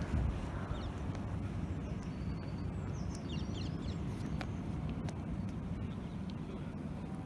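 Wind buffeting the microphone in a steady low rumble, with a few quick bird chirps about three seconds in.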